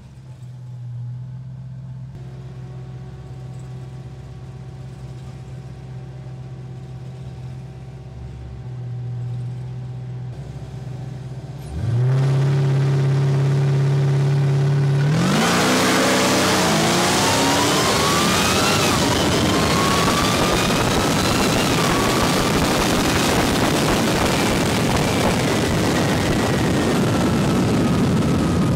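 A C6 Chevrolet Corvette's V8 idles, then is revved at about 12 seconds and held at a steady higher note for about three seconds at the line. At about 15 seconds it launches at full throttle, and its pitch climbs and drops back through several upshifts under a loud rush of noise.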